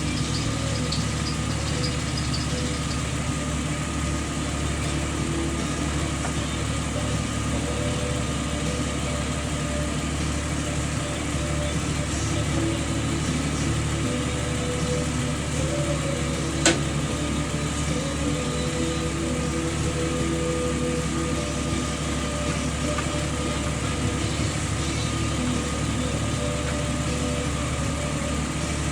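Jeep Wrangler engine idling steadily, with the squeak from its accessory drive belt that the owner has failed to cure by aligning the pulleys. A single sharp click comes a little past halfway through.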